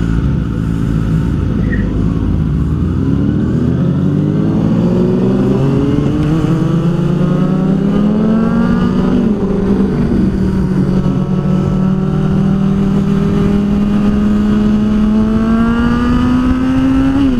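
Kawasaki Ninja ZX-6R inline-four engine pulling under acceleration. Its pitch climbs for about nine seconds, dips briefly at an upshift, then rises slowly again before another shift near the end.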